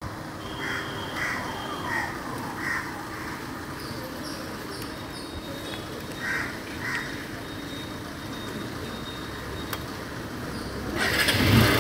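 Crows cawing over steady street noise, about half a dozen calls in the first seven seconds. Near the end, a motorcycle engine starts with a sudden loud rush.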